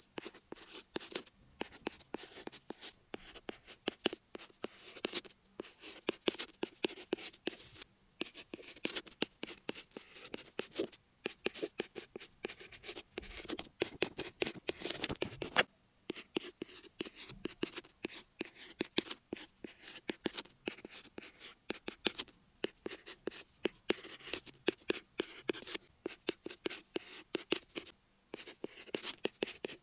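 Stylus tip tapping and scratching across an iPad fitted with a paper-like screen protector, writing characters stroke by stroke, with a few short pauses.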